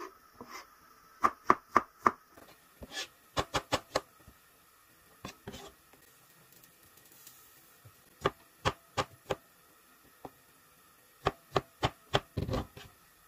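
Chef's knife chopping fruit, strawberries and then an apple, on a cutting board: sharp taps in quick runs of four or five strokes, with short pauses between runs.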